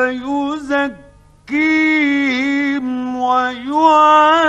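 A man reciting the Quran in a slow, melodic chanted style, holding long notes with ornamented turns. He pauses briefly about a second in, then resumes on a new long phrase.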